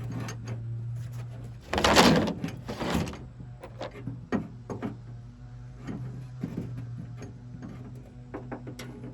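Handling and fitting of a replacement tailgate handle assembly and its bolt: scattered clicks and knocks of plastic and metal parts, with a louder scraping rustle lasting over a second about two seconds in. A steady low hum runs underneath.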